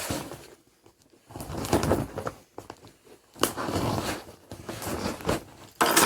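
Packing tape on a cardboard box being slit with a key and torn open, with scraping, tearing and cardboard rustling in several spells after a quiet first second. A sharper crackle comes near the end.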